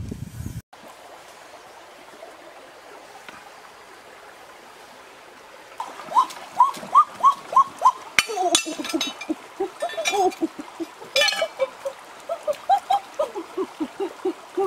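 A faint steady hiss of running water, then from about six seconds in an animal calling in short rising chirps, about three a second, with a few sharp clicks or splashes.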